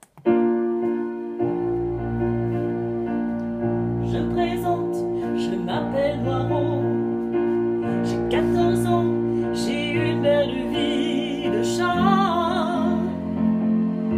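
Musical introduction to a song, starting abruptly: held chords, with a bass line coming in about a second in and a wavering melody from about four seconds in. The chords change about twelve seconds in.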